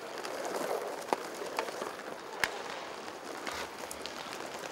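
Inline hockey play: skate wheels rolling on the rink floor under a steady hall echo, with a few sharp clacks of hockey sticks on the puck, the loudest about halfway through.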